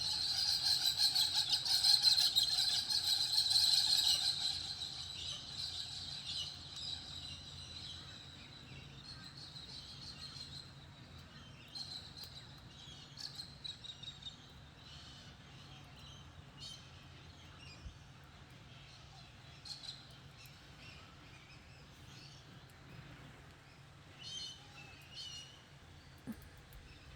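Forest birds calling: a loud, dense chattering for the first few seconds that fades away, then scattered short high chirps.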